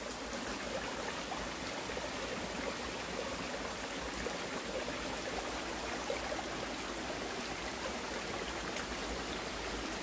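Shallow rocky mountain stream running over stones: a steady rushing trickle, with a faint tick or two.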